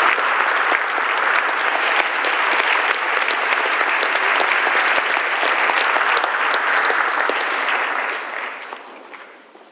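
Concert audience applauding, a dense steady clatter of many hands that dies away near the end.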